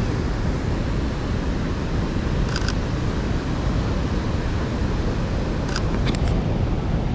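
Mirrorless camera's mechanical shutter (Sony A7R III) firing in short bursts: three rapid clicks about two and a half seconds in, then two more quick bursts near the end. Under it, a steady low rumble of wind and surf.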